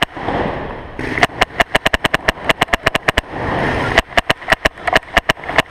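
Paintball markers firing in two rapid strings of sharp pops, about seven shots a second, with a break of under a second between them.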